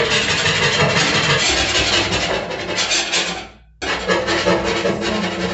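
Knife blade scraping baked-on grime off an oven floor, a continuous rasping scrape. It fades out briefly about two-thirds of the way through and cuts back in suddenly.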